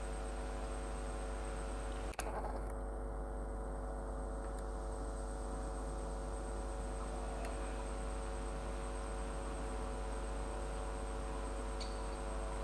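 Steady electrical hum made of several even, unchanging tones, with a single short click about two seconds in.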